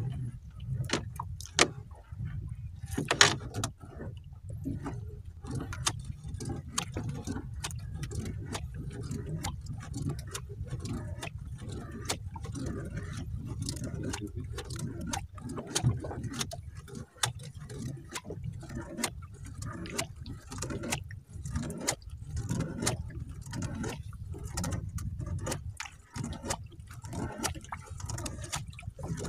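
Irregular clicks and knocks of a fishing longline being hauled in by hand over the side of a small boat, over a steady low rumble.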